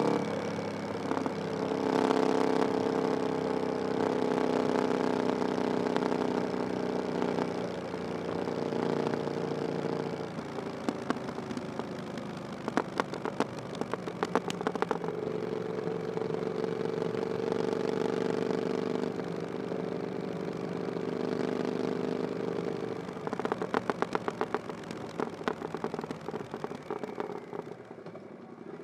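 Triumph Bonneville Scrambler 900's 900cc parallel-twin engine running through an aftermarket "VW pipes" exhaust while riding. Steady stretches of engine note alternate with two spells of crackling and popping, and the sound drops away near the end.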